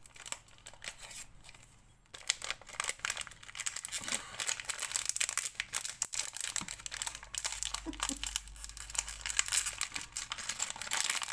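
Small plastic jewellery packets crinkling and tearing as they are pulled open by hand, a rapid crackle that is faint for the first two seconds and then busy.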